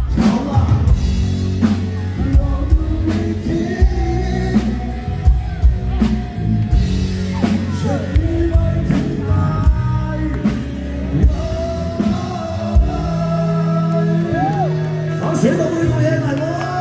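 Live rock band playing loud through a PA: a singer's voice over drum kit, electric bass and keyboard, with steady drum hits.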